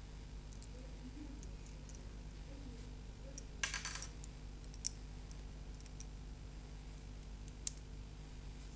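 Small clear plastic crystal-puzzle pieces clicking and clinking as they are handled and pressed together: a quick run of sharp clicks a little before the middle, then two single clicks later, with faint light ticks in between.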